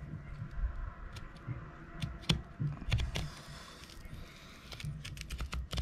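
Fillet knife cutting along a bluefin tuna's backbone, the blade ticking against the spine in a scatter of light clicks, with a short scraping hiss about three seconds in.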